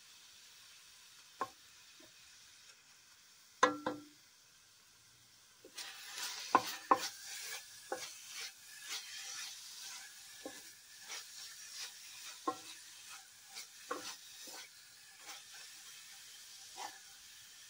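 Wooden spatula stirring and scraping chopped spinach frying in oil in an aluminium pot, the spinach sizzling and the spatula clicking and knocking against the pot. It starts with a few separate knocks, one louder one a few seconds in, then from about six seconds the sizzling and scraping become steady and busy. The spinach is being fried until it gives back its oil.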